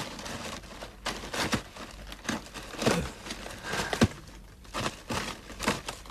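Outer leaves being torn and peeled off a head of napa cabbage by hand: a run of crisp snapping and crinkling.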